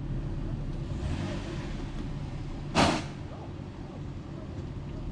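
Jeep Wrangler's engine running steadily at low speed as it crawls along a dirt trail, a low rumble. Just under three seconds in there is a brief, loud rush of noise.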